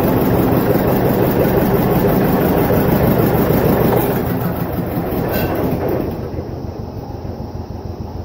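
John Deere 720 two-cylinder diesel tractor engine running with a steady rhythmic beat, loud at first, falling off about four seconds in and quieter again from about six seconds.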